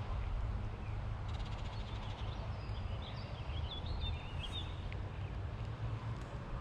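A bird chirping in a short run of quick notes around the middle, over a steady low outdoor rumble.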